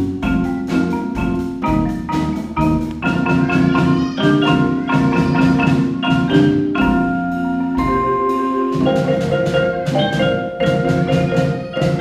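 Solo marimba played with mallets: a continuous run of quick, evenly paced struck notes, often several pitches at once, each note ringing briefly.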